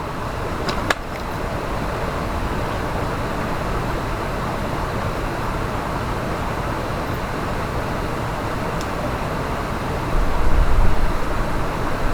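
Mountain stream rushing over rocks: a steady hiss of running water, with a sharp click about a second in and a low rumble coming in near the end.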